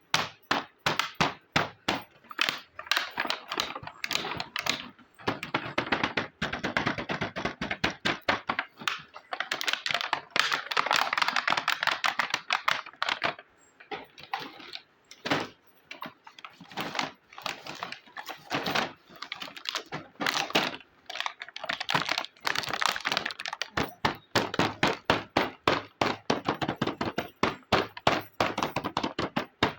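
Small hard-plastic toy pieces of a miniature kitchen set being handled, with rapid irregular clicking and tapping as parts are set down and snapped together.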